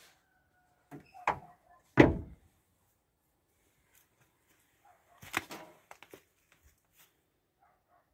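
A heavy metal door on an old tractor's cab slammed shut with a loud thunk about two seconds in, just after two lighter knocks. A few smaller metallic clanks and knocks follow a few seconds later.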